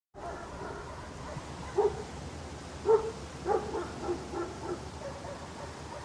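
A dog barking over steady outdoor ambience: two single barks, the louder one about three seconds in, then a quick run of shorter, softer barks.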